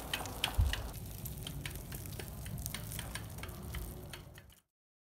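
Outdoor ambience: quick, irregular ticking clicks over a low rumble, with one louder thump about half a second in, fading out to silence near the end.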